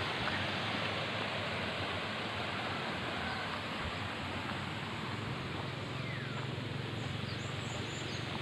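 Steady rush of flowing water, with a few faint bird chirps.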